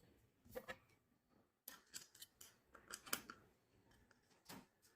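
Faint, scattered light clicks and taps, a few in quick succession, of small screws and hardware being handled while fitting a table leg base.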